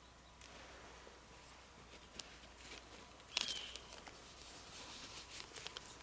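Faint crackling rustles, like movement in dry leaves, with one short falling bird-like call a little past the middle.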